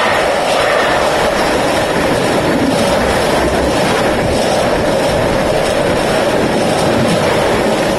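Container freight train's loaded flat wagons rolling past close by: a loud, steady noise of wheels on rail.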